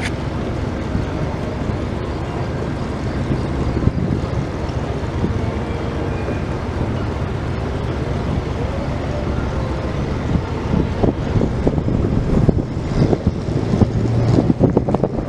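Amtrak Downeaster train running past, a steady low rumble with wind buffeting the microphone, growing louder and rougher near the end.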